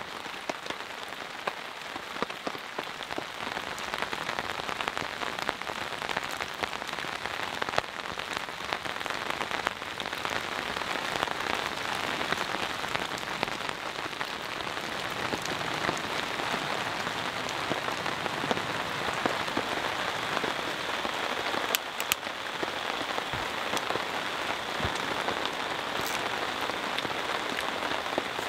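Steady rain falling on a tarp shelter and the surrounding forest, a dense hiss dotted with many single drops tapping. It grows gradually a little louder over the first several seconds.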